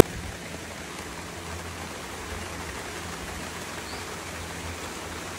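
Steady, even hiss of outdoor background noise with a low hum underneath, and a faint short chirp about four seconds in.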